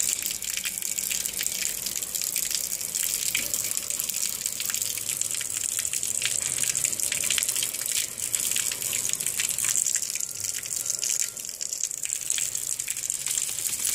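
Steady rain falling on concrete: a continuous hiss with many fine drop ticks.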